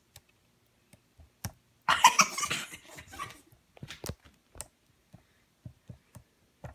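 Pizza sauce splattering out in a sputtering burst about two seconds in, lasting about a second and a half, with scattered clicks and knocks around it.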